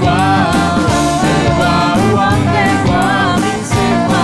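A live band playing, with a wavering saxophone melody over bass and evenly struck drums.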